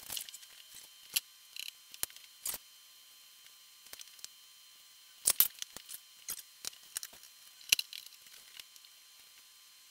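Scattered light clicks and taps of items being handled during food prep, loudest about five seconds in and near eight seconds, over a faint steady high-pitched hum.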